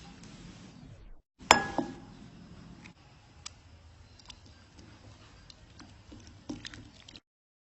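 A sharp knock about a second and a half in, then faint scattered clicks and light taps of small objects being handled. The sound cuts off abruptly near the end.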